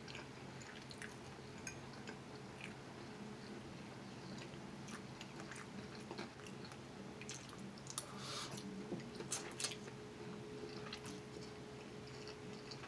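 Faint, close chewing and mouth sounds of a person eating lo mein noodles, with scattered soft clicks and smacks that bunch up about eight to ten seconds in, over a faint steady hum.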